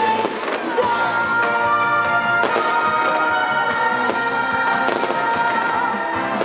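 Music with long held notes, with fireworks bursting over it a handful of times.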